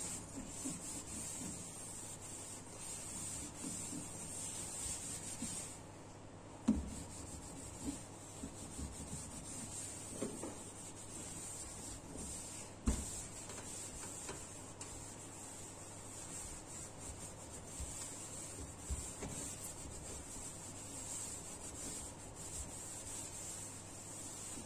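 Cloth rubbing over a stainless steel gas stovetop in continuous wiping strokes, taking off cleaner residue. There is a short knock about a quarter of the way in and another about halfway.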